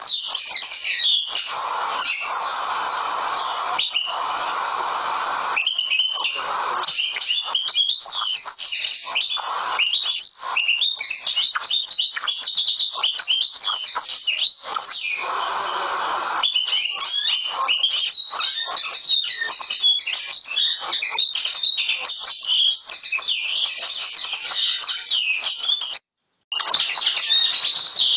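Caged common linnet singing: a long, nearly unbroken run of fast, varied twittering, which breaks off for a moment near the end.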